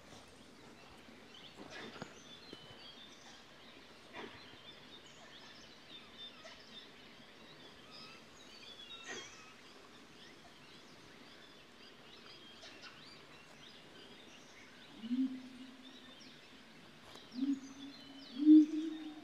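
Faint bird chirps over the forest, then in the last few seconds three short, low monkey calls, the last the loudest. They are alarm calls, which the presenter takes as the troop's warning that a tiger is near.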